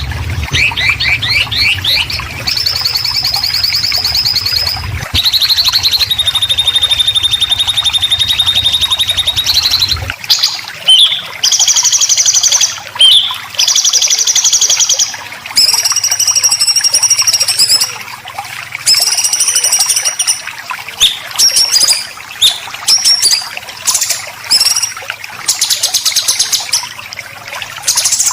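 Songbird giving 'besetan', the harsh, drawn-out buzzy rasping notes used to train caged songbirds. For the first ten seconds or so the notes are long and held over a low hum, then the recording changes and shorter rasps come in quick bursts.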